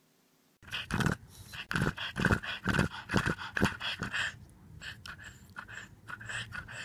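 A black pug panting fast with its tongue out, about three pants a second, starting about half a second in and growing softer in the second half.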